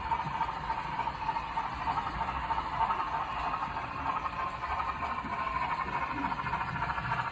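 HO scale model steam locomotive and passenger train running along the track toward the listener: a steady motor whine with a fast, fine rattle of wheels on rail.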